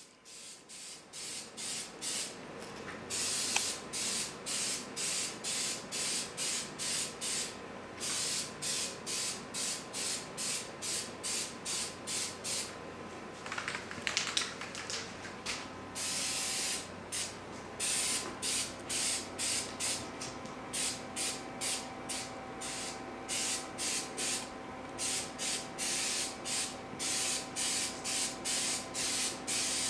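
Aerosol can of 3M rubberized undercoating spraying in quick short bursts, about two a second, with a few longer sprays held for about a second.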